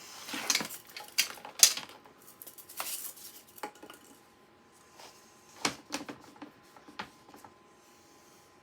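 Plastic clips on an Xbox One X disc drive being worked loose with a small pry tool and fingers. There is a quick run of clicks, snaps and scraping of hard plastic in the first three seconds, then a few separate clicks.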